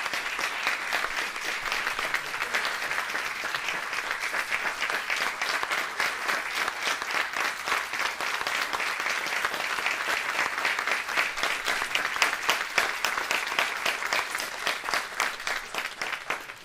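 An audience applauding steadily, many hands clapping densely together, cutting off abruptly at the very end.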